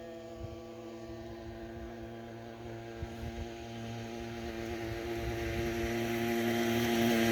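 A motor engine's steady, even drone, growing gradually louder as it approaches.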